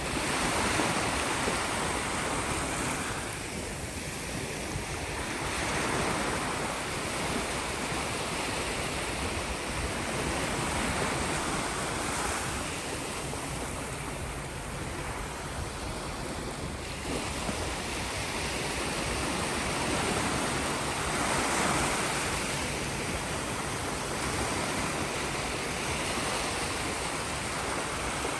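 Sea waves breaking and washing on a shore: a continuous rush of surf that swells and ebbs every several seconds.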